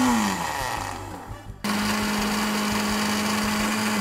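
Kitchen blender pulsed to chop wafer cookies. The motor winds down just after the start, stops for about a second, then starts again abruptly and runs at a steady pitch, beginning to wind down at the end.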